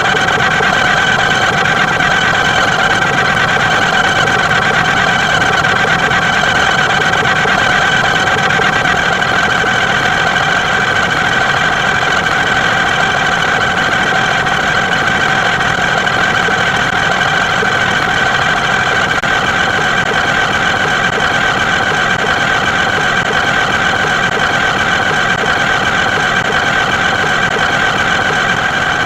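A steady, loud engine-like drone held at one unchanging pitch, with no starts, stops or revving.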